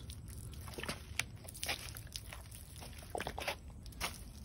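Lemon juice squirted from a plastic squeeze bottle in a thin stream, splashing onto dry, mortar-hazed brick, with faint scattered crackles.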